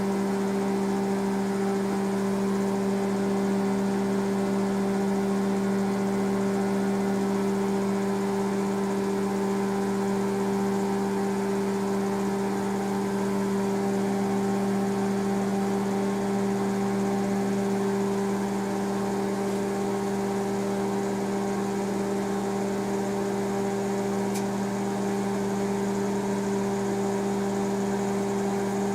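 Microwave oven running partway through a four-minute cooking cycle: a steady, even hum.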